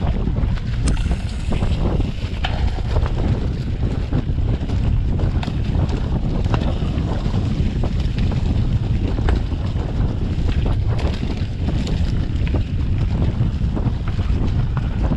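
Wind buffeting the microphone and a steady rumble of a mountain bike riding over a dirt forest singletrack, with frequent short clicks and rattles as the bike bounces over the rough trail.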